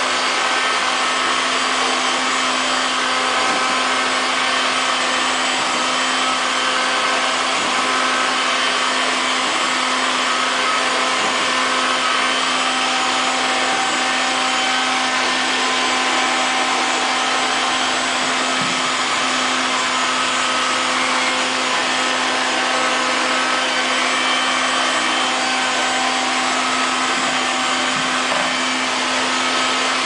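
Liectroux LL-305 robot vacuum cleaner running: a steady, unchanging whir with a constant low hum beneath it.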